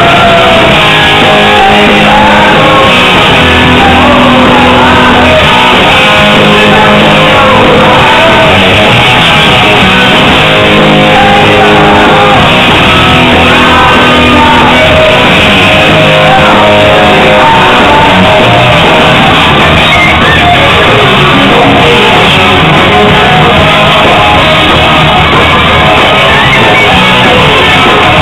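Hard rock band playing live: electric guitars, bass and drums with a singer's shouted vocals over them, very loud and even in level. The recording is muffled, with little treble.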